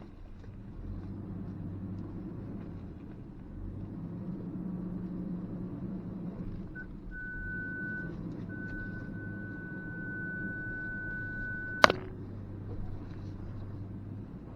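2023 Ford Ranger Tremor's engine rumbling low at crawling speed on a trail. About seven seconds in, the parking-sensor warning starts: a few long high beeps that merge into one solid tone, the sensors picking up trailside branches. A single sharp knock near twelve seconds, the loudest sound here, cuts the tone off.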